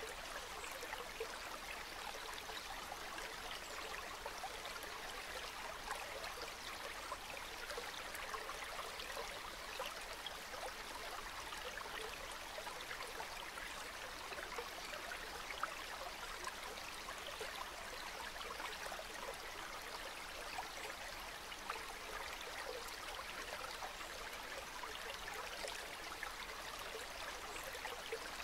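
Calm river water flowing steadily, a continuous gentle rush dotted with many small quick splashes and trickles.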